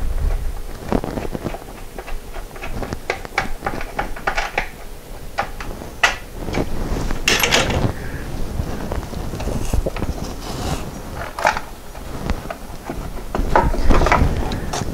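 Timing belt cover on a VW Cabriolet's engine being pulled and wiggled loose by hand: irregular plastic clicks and knocks, with a louder scraping rustle about seven seconds in.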